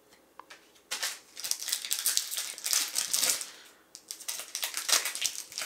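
Trading cards and their pack being handled: crisp rustling and crinkling in two stretches, one starting about a second in and the other about four seconds in.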